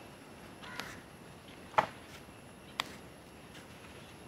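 Salt being added by hand to spiced raw chicken in an aluminium pot: three light clicks about a second apart over a quiet background.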